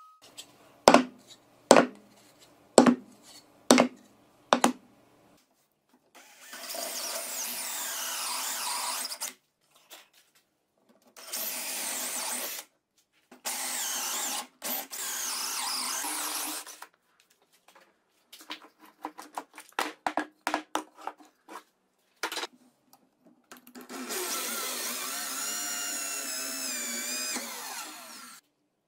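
Five sharp metal knocks in quick succession, then an electric power tool running in several bursts of a few seconds each, its pitch wavering under load. Between the bursts, a run of quick clicks and taps.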